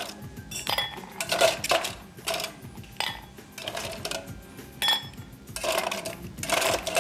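Ice cubes dropped one at a time into a large balloon glass, about a dozen sharp clinks at irregular intervals.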